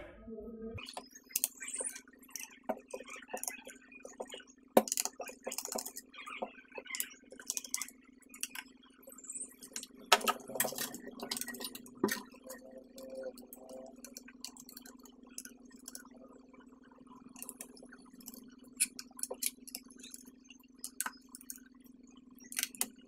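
Irregular light clicks, ticks and knocks of a screwdriver working small screws out of the plastic underside of an HP Pavilion DV6 laptop, with parts handled against the case, over a steady low hum.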